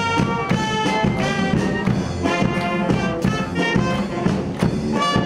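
Military brass band playing a march while walking: brass horns, trumpets and a clarinet over a steady drum beat.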